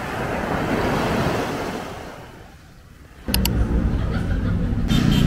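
A wave breaks and washes up a sandy shore, swelling and then fading away. About three seconds in it cuts abruptly to louder street noise with a low vehicle engine rumble and a few sharp clicks.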